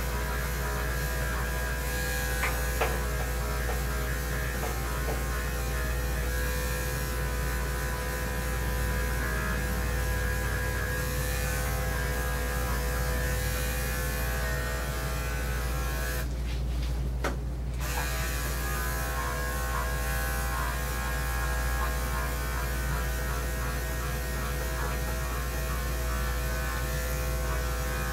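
Electric dog grooming clippers running steadily as a dog's coat is shaved down, over a constant low hum.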